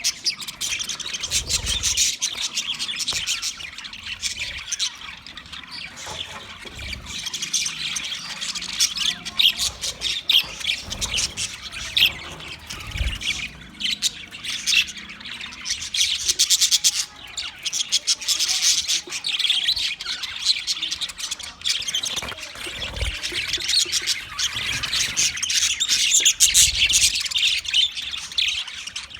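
English budgie (budgerigar) chirping and chattering continuously, a dense run of quick high warbles and squawks.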